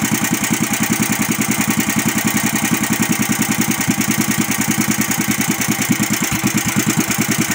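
Yamada VR460 18 hp small engine running steadily at low speed with an even beat of about nine pulses a second, on a test run after new parts were fitted.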